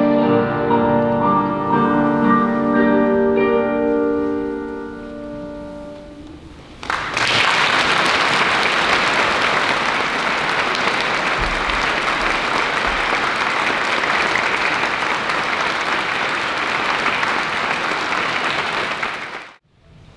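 String ensemble's final sustained chord fading away, then audience applause starting about seven seconds in and holding steady until it cuts off suddenly near the end.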